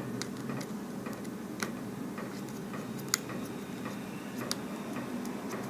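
Faint, sharp, separate clicks about every second and a half from a small screwdriver working the tiny screws on an iPhone 6's battery connector bracket, over a steady low hum.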